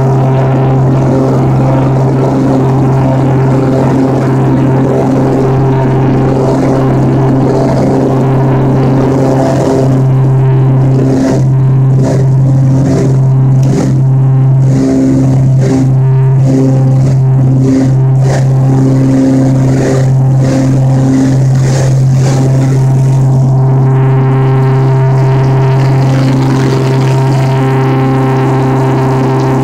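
Twin piston-engine propeller commuter plane's engines running loud and steady, a deep even drone with a stack of higher tones over it. Brief rattling crackles come and go through the middle.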